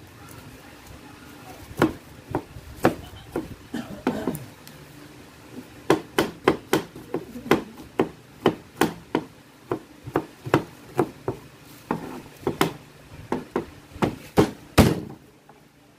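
A chef's knife chopping garlic cloves on a cutting board, a series of sharp taps. The taps are scattered at first, then settle into a steady run of about two to three a second through most of the rest, with the loudest blow near the end.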